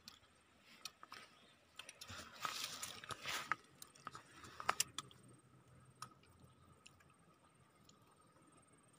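Faint sounds of people eating durian: soft chewing and mouth clicks, with a louder stretch of rustling noise about two to three and a half seconds in.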